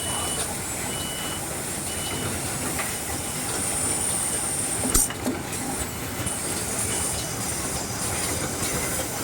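Automatic microphone-wire soldering machine running with a steady mechanical hiss and hum, a few short high beeps, and one sharp clack about five seconds in.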